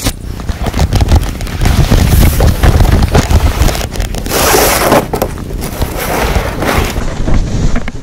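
Canoe being dragged by hand over sand and rock: a loud, rough scraping and knocking of the hull with crackling rumble on the microphone, and a louder hissing scrape about four seconds in.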